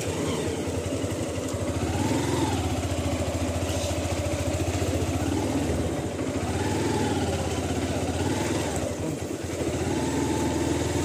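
A small engine, like a motorcycle's, running steadily, with a higher wavering tone that rises and falls several times.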